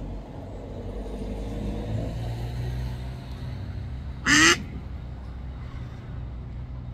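A mallard hen gives a single short, loud quack about four seconds in, over a steady low hum.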